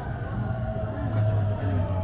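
223 series electric train's inverter-driven traction motors whining, the pitch slowly falling as the train brakes into a station, over the low rumble of the running gear.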